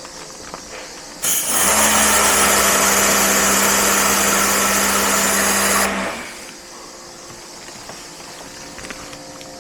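A motor-driven cleaning machine switches on about a second in and runs steadily for about five seconds, a loud hiss over a steady hum, then winds down.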